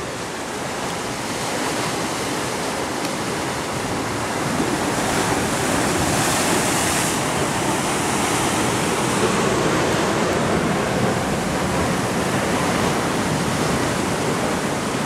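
Ocean surf breaking and washing over rocks in a continuous rush of white water, growing louder about five seconds in.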